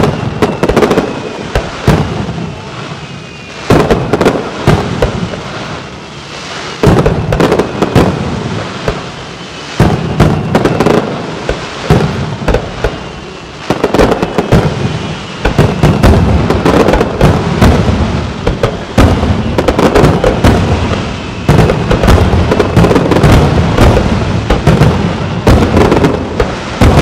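Fireworks display: aerial shells bursting one after another in loud bangs and crackles, with faint whistling tones here and there. The bursts come in clusters with short lulls early on and grow into a dense, continuous volley in the second half.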